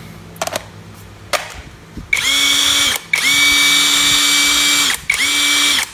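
Cordless brushless impact wrench motor spinning free with no load, pulled on in three runs: about a second, about two seconds, then a short burst, each with a steady high whine. A few light clicks come first. This is a test run of the repaired wrench, which now runs.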